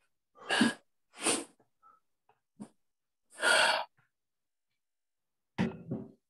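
A man breathing hard after a set of push-ups: three loud, breathy huffs in the first four seconds. A short, sharper sound follows near the end.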